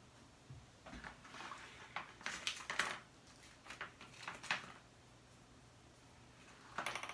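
Rustling and crinkling of the iMac display's adhesive strips and their plastic backing being peeled and handled, in irregular clusters with a pause in the middle and a last short burst at the end.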